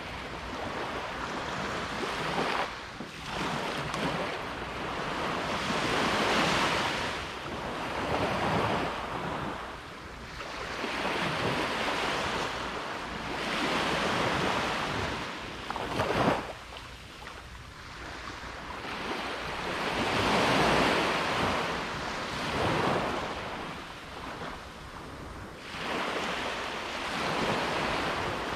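Ocean surf breaking on a beach, the wash swelling and fading with each wave every few seconds, with wind rumbling on the microphone. A brief sharp crack stands out about halfway through.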